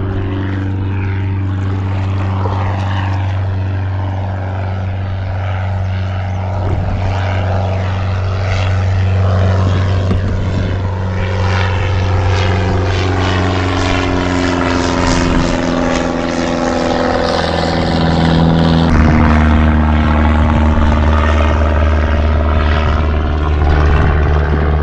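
Steady engine drone of a propeller-driven light aircraft flying over, with a sweeping, phasing tone as it passes; the engine note shifts about three quarters of the way through.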